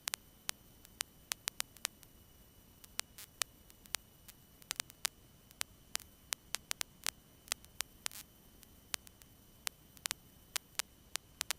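Irregular sharp clicks and crackles of static, several a second, on an otherwise nearly silent radio and intercom audio feed.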